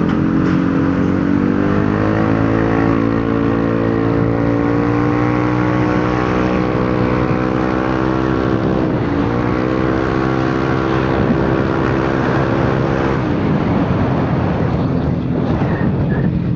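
Yamaha Aerox 155 scooter accelerating through its CVT, which has a newly fitted JVT pulley set. The engine note climbs over the first few seconds and then holds one steady pitch while the scooter gathers speed. It dips briefly about nine seconds in and fades as the throttle closes about thirteen seconds in, with wind and road noise throughout.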